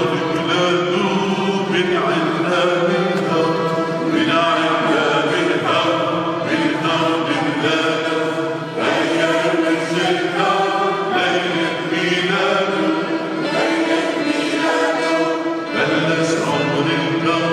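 A mixed church choir of men and women sings a hymn in a chant-like style. A man's voice leads through a microphone, and a violin accompanies them.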